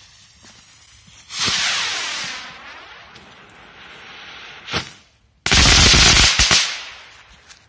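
Firework rocket motor hissing and spraying on its launch stand without lifting off, then a sharp pop about five seconds in and a loud burst of crackling lasting about a second. The rocket fails to fly, which the launcher suspects is because it got damp.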